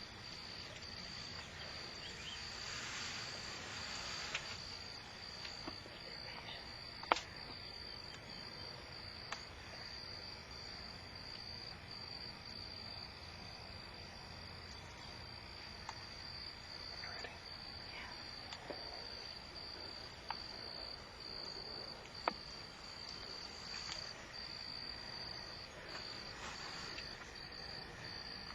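Crickets chirring, a steady high-pitched trill that goes on without a break. A few sharp clicks sound over it, the loudest about seven seconds in and another around twenty-two seconds.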